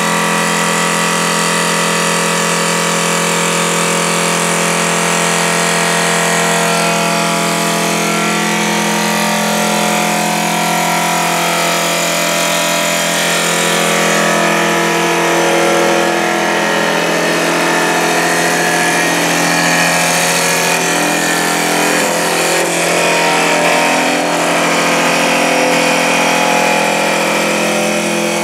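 CNC woodworking lathe running with a steady motor and spindle whine. About seven seconds in, the sound turns rougher and less even as the cutter shapes a turning wooden spindle.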